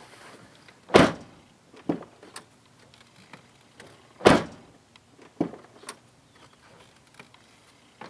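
2013 GMC Sierra 2500HD driver's door shut twice, about a second in and again past four seconds, each followed by lighter clicks of the newly replaced inside handle and cable releasing the latch as the door is opened again. The latch works with the new cable.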